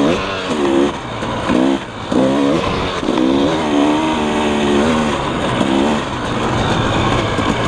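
KTM 300 EXC two-stroke dirt bike engine being ridden, revving up and backing off again and again as the throttle is worked, over a steady rush of wind noise.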